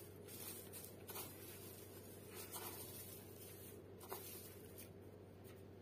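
Faint rustling and scratching of dry straw as a hand moves among eggs in a plastic tub, with a few light strokes.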